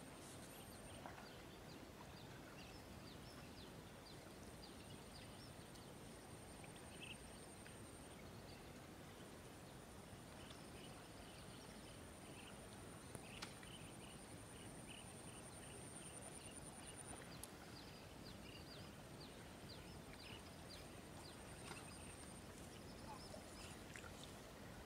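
Faint sounds of water buffalo grazing: scattered soft ticks and tearing of grass being cropped. Beneath them runs a thin, high, continuous trill that stops and restarts a few times.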